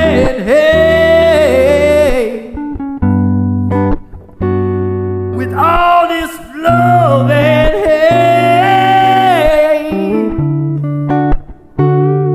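Music: a song with a sung vocal line over guitar, the voice holding long, bending notes in two phrases with guitar chords between them.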